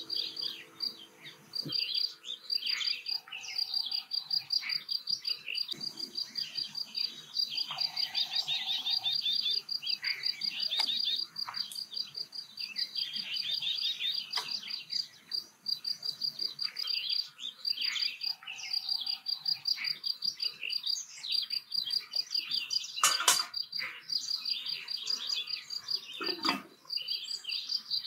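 Birds chirping and calling over a steady, rapidly pulsing high insect trill, with one sharp knock about three-quarters of the way through.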